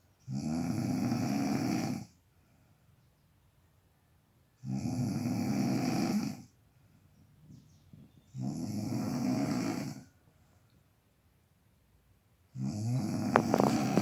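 Snoring: four long snores about four seconds apart, the last one with a few sharp clicks near the end.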